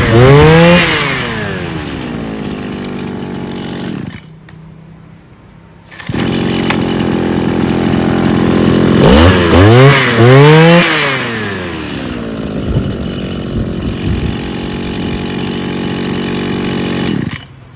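Small two-stroke engine of a handheld garden power tool, blipped up to high revs and back to idle twice. The speaker says it revs quickly and the engine note is good and light. It drops out for about two seconds some four seconds in, then runs again until it stops near the end.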